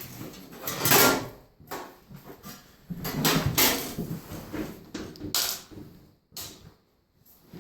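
Clunks and scraping of the washer's top panel and its metal reinforcement brackets being handled and fitted, in several short bursts with the loudest about a second in.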